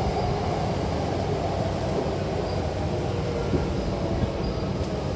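Hankyu Takarazuka Line electric train running on the track, a steady rumble of wheels and motors that eases slightly in level.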